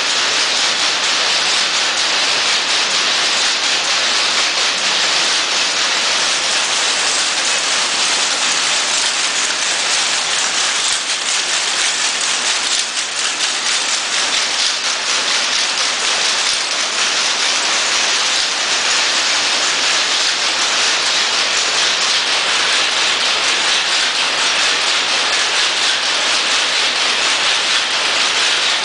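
Jacquard machine and rapier loom running at speed: a loud, dense, steady mechanical clatter.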